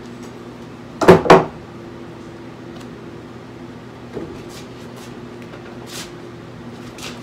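A Bowie knife driven into a tough red object on a wooden workbench: two loud sharp knocks about a second in, then a few lighter knocks and scrapes as the cutting goes on, over a steady low hum.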